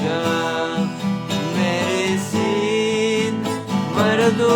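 Acoustic guitar strummed in a steady rhythm, with a voice holding long sung notes.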